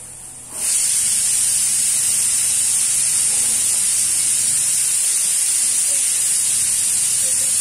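A steady, fairly loud hiss, strongest high in the treble, that switches on abruptly about half a second in and then holds even.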